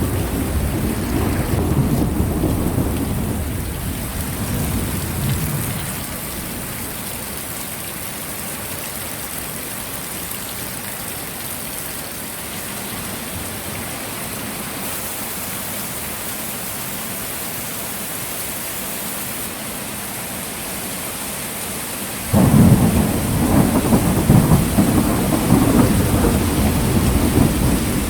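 Heavy rain falling steadily with thunder rumbling. The rumble dies away about five seconds in, leaving the rain alone, then a sudden loud clap of thunder breaks about 22 seconds in and rolls on.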